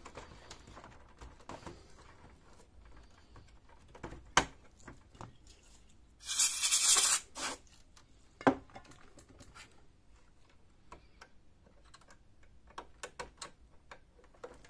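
Small clicks and taps of gloved hands working the plastic ribbon-cable connectors on a Brother DCP-1512 printer's main board, with a sharp click about four seconds in and another about eight and a half seconds in. Around six seconds in, a loud hiss with a thin whistle lasts about a second: a blast of compressed air clearing the cable connectors.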